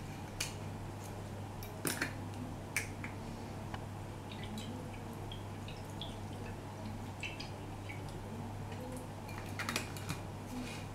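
Vinegar shaken from a glass bottle onto a salad: a few faint drips and light clicks, scattered and with a small cluster near the end, over a low steady hum.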